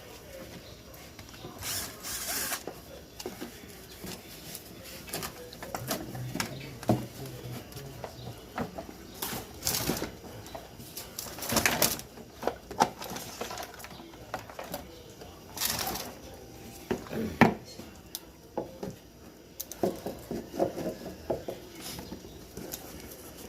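Hand tools and parts being handled during an e-bike battery swap: irregular clicks, knocks and ratchet-like clicking, with a few short scraping rasps.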